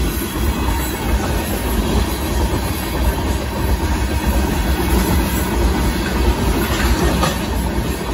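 Freight hopper cars of a rock train rolling past, a steady loud rumble of wheels on rail.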